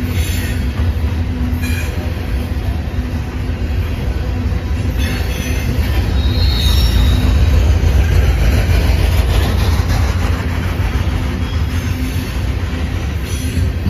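Empty coal hopper cars of a CSX coal train rolling past, a steady heavy rumble of steel wheels on the rails with occasional clanks. A brief high wheel squeal comes about halfway through.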